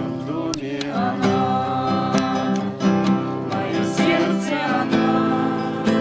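Acoustic guitar strummed in steady chords, with voices singing a song over it.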